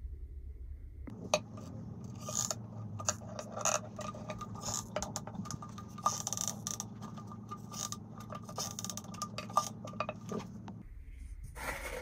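Irregular small clicks, knocks and short scrapes of rough stones and a caulking gun being handled in a glass tank, over a steady low hum.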